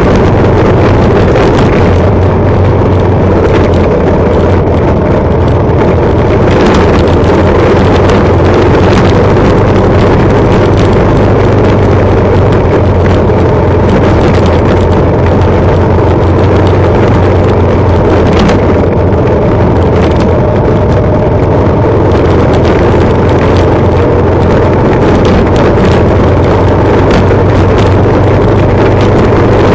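Motorcycle engine running steadily at riding speed on a rough gravel road, with wind buffeting the microphone. A few short knocks from bumps come through about a third of the way in and again past halfway.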